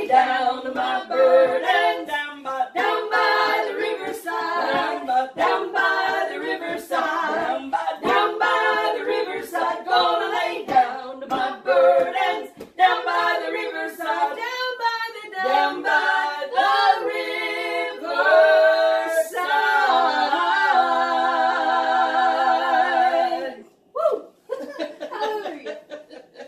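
A small group of women singing a gospel worship song together unaccompanied, ending on a long held note with vibrato a few seconds before the end. The singing then stops, leaving a pause with a few brief voices.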